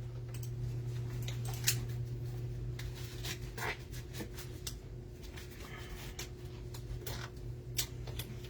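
Scattered light clicks and rustles of small handling noises over a steady low electrical hum.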